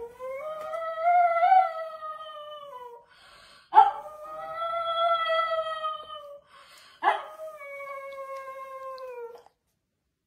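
A pug howling: three long howls, each starting sharply and sliding down in pitch as it trails off.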